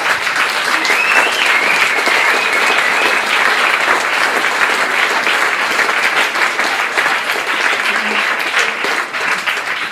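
Theatre audience applauding with steady dense clapping, with a brief wavering whistle over it a second or two in.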